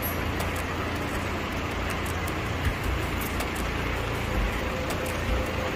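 Broiler house ambience: a steady low rumble and hiss with faint scattered ticks.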